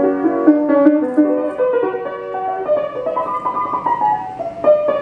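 Background piano music: a melody of short notes stepping from one to the next.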